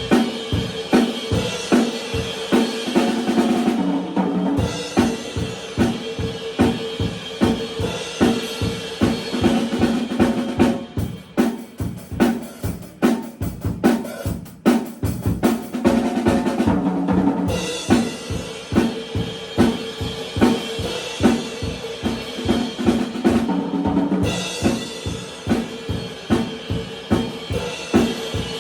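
Acoustic drum kit played alone for a sound check, a steady groove at full volume with kick drum, snare and cymbals. About halfway through, the cymbals drop out and it gets quieter for a few seconds before the full groove comes back.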